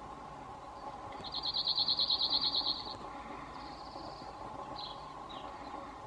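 Male cirl bunting singing: one rapid, dry trill of about a dozen identical notes on one high pitch, lasting about a second and a half. A fainter trill follows, then two short high notes near the end.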